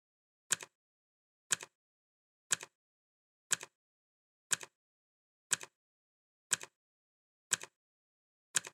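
Clock ticking sound effect: one sharp tick every second, nine in all, each tick a quick double click, with complete silence between.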